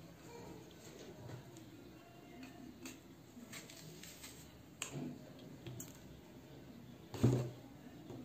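Faint clicks and taps of a kitchen knife cutting apple slices on a plastic cutting board, with a louder knock about seven seconds in.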